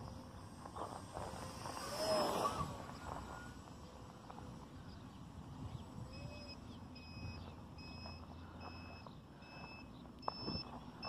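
Brushless electric motor and propeller of a small RC foam plane running in flight, heard as a thin steady tone that swoops up and back down about two seconds in and again about six seconds in. A rush of wind on the microphone comes about two seconds in. From about six seconds a regular series of short high beeps repeats, roughly one every 0.7 seconds.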